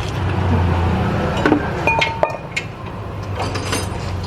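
Metal tools or parts clinking and knocking as they are handled, a few strikes ringing briefly, about a second and a half to two and a half seconds in, then a quick run of lighter jingling ticks near the end, over a steady low hum.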